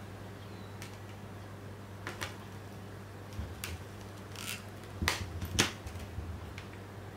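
Hard plastic clicks and snaps as Blu-ray discs are pressed onto the centre hubs of a clear plastic Blu-ray case. The clicks are scattered, with the two loudest about five seconds in, half a second apart, over a steady low hum.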